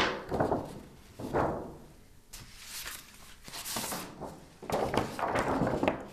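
Large sheets of paper swishing and rustling as they are lifted and flipped, in four or five bursts, with a sharp thump at the very start.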